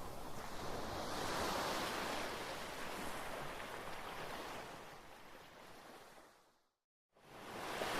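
Ocean surf washing in a steady rush that swells and then fades away to a brief total silence about six and a half seconds in, before the waves fade back in, louder, near the end.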